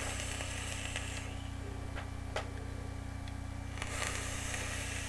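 Soft airy hiss of a long draw through a dual-coil rebuildable dripping atomizer with its airflow wide open, then a few faint clicks and a long breathy exhale of vapor near the end, over a steady low hum.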